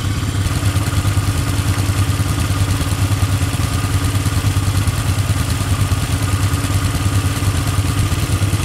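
Vehicle engine running at a steady, even speed.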